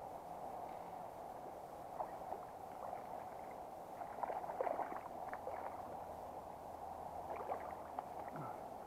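Steady burble of a shallow river, with several short bursts of splashing as a hooked brown trout thrashes at the surface and is drawn into a landing net, the biggest about halfway through.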